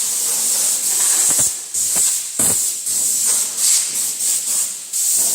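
Hissing air blown in short, irregular bursts, typical of a compressed-air blow gun clearing sawdust out of a switched-off bandsaw, with a few light knocks.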